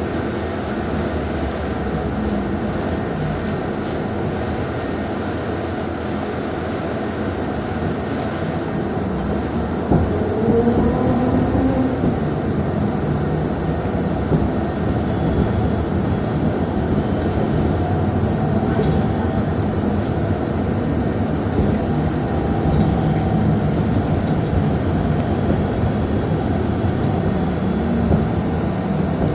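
UTTZ-6241-10-02 Gorozhanin trolleybus heard from inside while under way in traffic: a steady rumble of the running bus. About ten seconds in, the electric traction drive whines rising in pitch as it pulls away, and it whines again more faintly a few times later.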